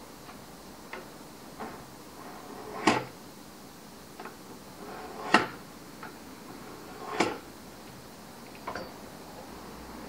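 Steel knife blank and a small marking tool being handled on a wooden workbench: a string of light clicks and taps, with three louder knocks about three, five and seven seconds in.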